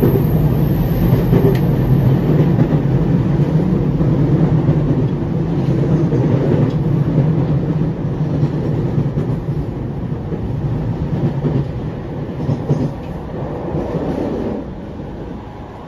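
JR E231 series commuter EMU running, heard inside the passenger car: a steady low rumble of wheels and running gear on the rails with a few faint knocks. The rumble gradually grows quieter after about twelve seconds.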